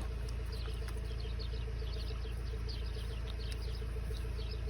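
A dense chorus of short, high, falling chirps, several a second, from small animals, over a steady low hum.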